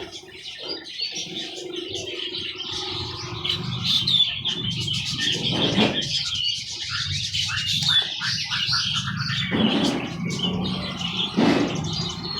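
Many caged songbirds chirping and trilling at once, in dense, rapid, overlapping calls, over a low steady hum.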